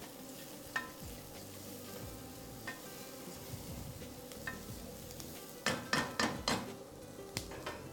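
A spatula stirs and scrapes rice and diced bell peppers in a hot pan while the rice sizzles faintly. The spatula knocks and clicks against the pan now and then, most of it in a quick cluster about six seconds in.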